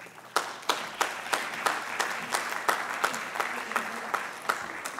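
Audience applauding, with one nearby person's claps standing out at about three a second over the general clapping, easing off near the end.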